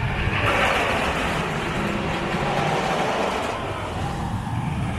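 Roller coaster train rolling along its track: a steady rushing rumble that eases after about three and a half seconds.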